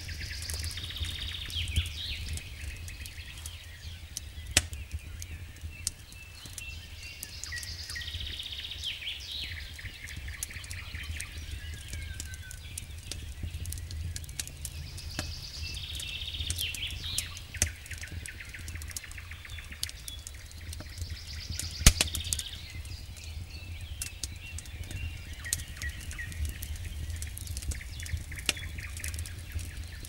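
Wood campfire crackling with scattered sharp pops, one much louder pop about two-thirds of the way through. A songbird repeats a short high warbling phrase about every seven seconds over a steady low rumble.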